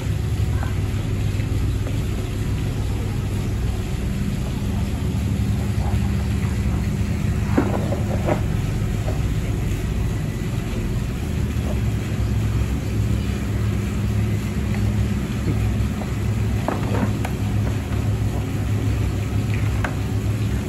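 Steady low rumble, with a few short knocks, two of them about eight seconds in and a cluster near the end.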